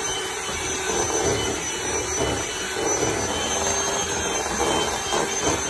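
Handheld electric mixer running steadily, its beaters churning cake batter in a stainless steel bowl.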